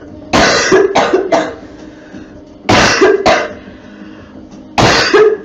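A girl coughing in three loud bouts: a run of three coughs just after the start, two more near the middle, and a last cough near the end.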